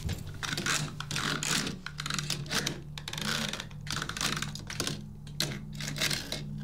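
Typing on a computer keyboard: irregular runs of key clatter, over a steady low hum.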